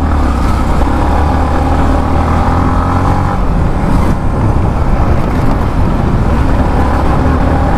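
Yamaha MT-15 motorcycle's single-cylinder engine running at a steady pitch while riding over a rough, broken road, with a continuous rush of wind and road noise.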